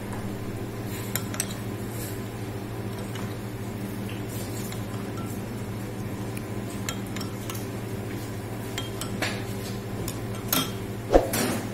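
Metal spoon clinking and scraping against a ceramic soup bowl while stirring and lifting soup. The clinks are scattered, with the loudest ones near the end, over a steady low hum.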